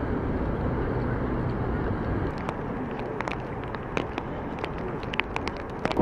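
Strong gusting wind buffeting the microphone, a steady low rumbling noise that eases a little after the first couple of seconds. Through the second half comes a scatter of short sharp clicks and taps.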